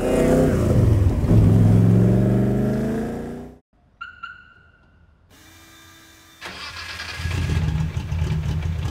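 Car engine, the Commodore's Nissan GT-R engine, running hard with its pitch slowly falling, then cut off abruptly. After a quiet gap with two short electronic beeps, the engine is heard running again, growing louder toward the end.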